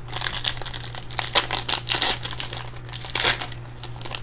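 Foil trading-card pack wrapper being torn open and crinkled by hand, a run of irregular crackling rustles with a few louder crinkles.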